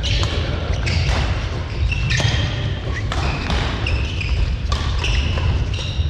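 Badminton doubles rally: rackets striking the shuttlecock about once a second, with players' shoes squeaking on the court floor over a steady low hall rumble.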